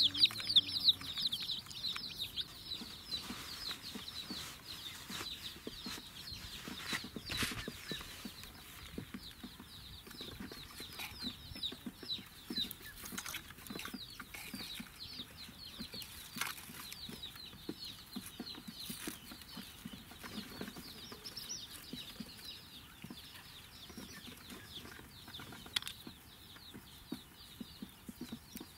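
A flock of young chicks peeping without pause: many short, high, falling chirps overlapping, with an occasional knock from the netting or the toy being handled.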